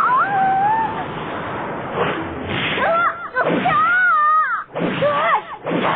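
Animated cartoon characters' voices crying out in high, sliding calls over a steady hissing noise: one drawn-out call at the start, then several short rising-and-falling cries from about three seconds in.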